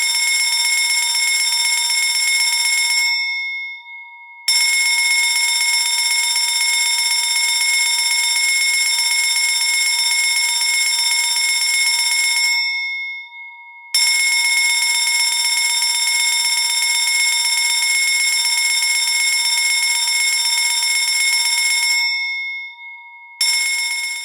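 A loud electric fire alarm bell rings continuously in long rings of about eight seconds, broken by pauses of a second or so in which the gong's tone hangs on and fades. A new ring starts just before the end.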